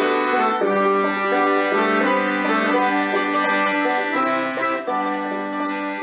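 Intro music: an upbeat instrumental tune led by plucked strings in a banjo and bluegrass style.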